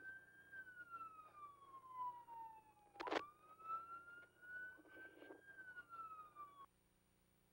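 Police car siren on a slow wail, rising and falling about once every three seconds, with a sharp click about three seconds in. It cuts off suddenly near the end.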